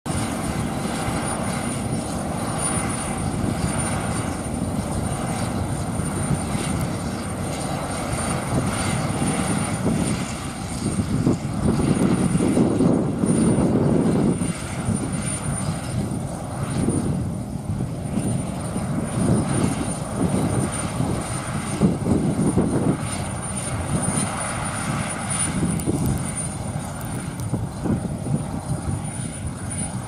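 Yenisei 1200-1 combine harvester running while harvesting, its diesel engine and threshing machinery making a continuous droning mechanical noise. It swells as the combine comes nearest, about twelve to fifteen seconds in, then rises and falls unevenly.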